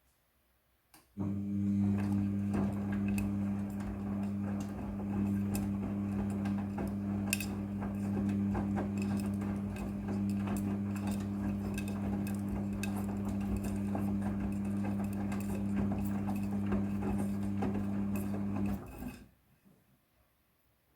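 Midea front-loading washing machine starts running about a second in with a steady hum and light rattling and clicking, then cuts off suddenly near the end.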